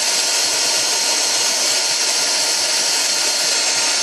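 Handheld heat gun running steadily: a loud, even hiss of its fan blowing hot air onto a phone's metal midframe to soften a sticker's adhesive.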